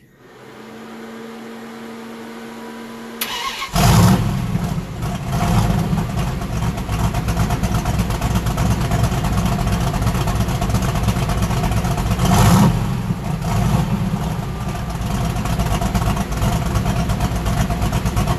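Turbocharged Mopar 361 big-block V8 in a 1973 Dodge Charger, fed by a blow-through carburettor, started for the first time. A steady whine lasts about three seconds, then a click. The engine catches a little under four seconds in and keeps running, revved briefly twice: once just after it catches and again near the twelve-second mark.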